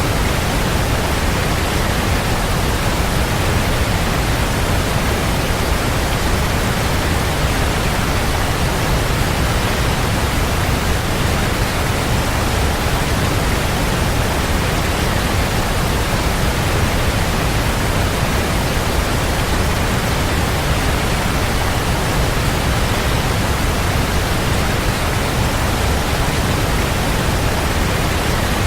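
Waterfall: water falling and splashing in a steady, unbroken rush, loudest in the low end.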